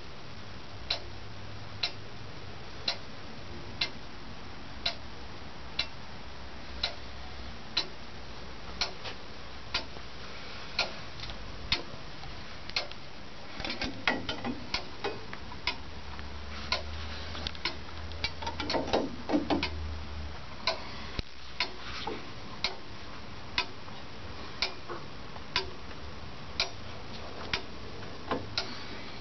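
Brass English lantern clock ticking steadily, about once a second, its escapement driven by a hanging weight on a chain. Around the middle comes a cluster of irregular knocks and rattles.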